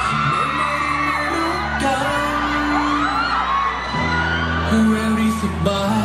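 Pop song with singing played loud over a sound system, with whoops from the audience.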